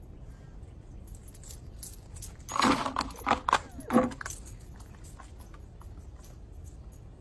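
Brief metallic jangling: a quick run of small jingles and clinks over about two seconds, starting about two and a half seconds in, over a steady low hum.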